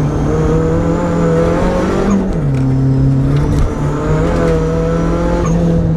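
Suzuki Swift rally car's engine heard from inside the cabin, running hard under load. Its pitch drops about two seconds in and climbs back about a second and a half later.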